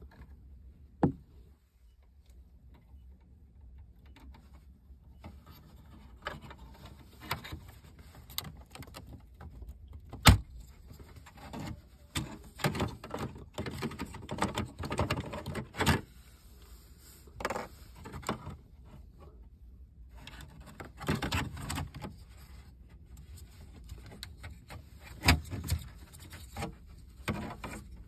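Plastic dashboard trim cover being pried out with a bent wire hook: irregular scraping and rattling of plastic and wire, broken by a few sharp clicks, the loudest about ten seconds in, as the cover comes loose and its wiring plug is handled.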